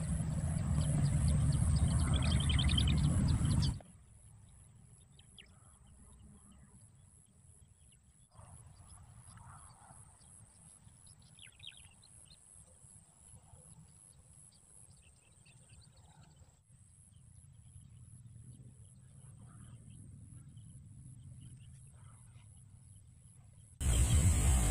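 Quiet open-air ambience with faint, scattered bird chirps. It is preceded for the first four seconds by a louder, steady low rumbling noise that cuts off abruptly.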